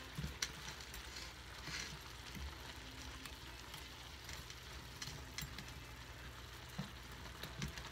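Shell-on shrimp frying in a pan with a faint, steady sizzle. A few light taps come as they are turned over.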